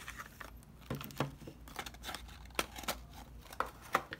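Clear plastic packaging bag crinkling and crackling as it is pulled out of a cardboard box and handled, with irregular soft crackles and a few sharper ticks.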